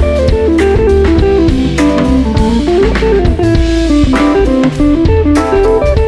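Live jazz: an electric guitar plays a single-note melodic line over a drum kit, with cymbal and drum hits throughout and a low bass line underneath.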